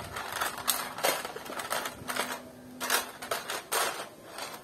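LOZ mini bricks clattering as a hand rummages through them in a plastic tub. The sound is an irregular run of sharp clicks and rattles.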